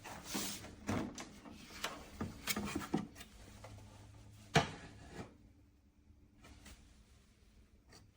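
A scatter of light clicks and knocks, with one sharper knock about halfway through, then near quiet.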